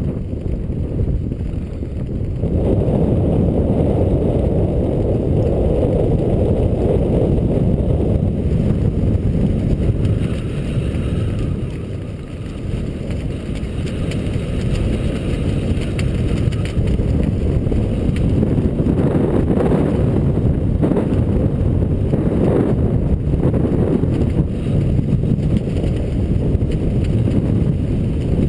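Wind buffeting the GoPro's microphone during flight under an open parachute canopy: a steady low rumble that eases briefly around the middle.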